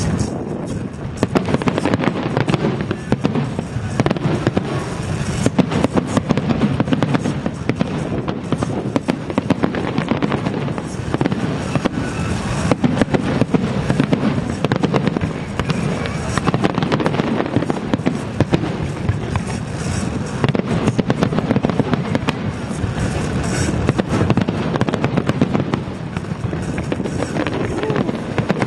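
Aerial fireworks display: a dense, continuous barrage of bangs and crackling shells with no pauses.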